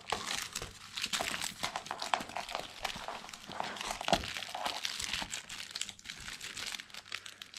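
Crinkle-filled plush dog toy rustling and crackling as a Pomeranian tugs and bites at it, in dense irregular crinkles with a sharper crackle about four seconds in.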